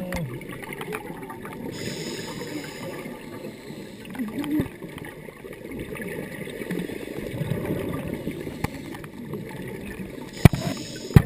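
Muffled underwater noise through a camera's housing: a scuba diver's breathing and bubbles gurgling, with a brief hiss twice and a few sharp clicks near the end.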